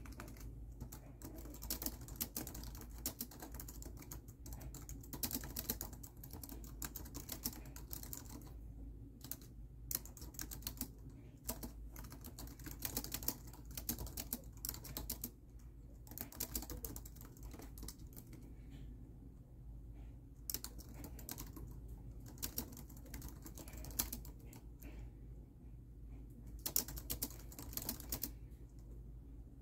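Typing on a laptop keyboard: quick runs of key clicks with a few brief pauses between runs.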